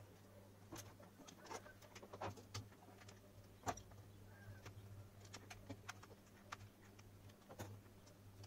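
Faint scattered clicks and taps of hands handling a plastic torch housing while pressing a small TP4056 charging-module board into it, the sharpest tap about three and a half seconds in, over a low steady hum.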